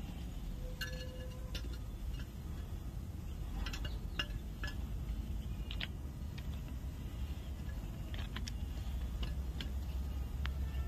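Irregular light clicks and taps from a handheld inspection mirror and magnifying glass being moved against the rail and ballast, over a steady low background rumble.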